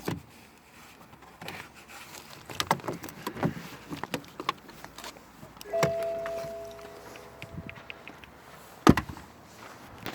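Irregular clicks and knocks of handling parts or tools, with a short metallic ring that fades over about two seconds about six seconds in, and one sharp, loud knock near the end.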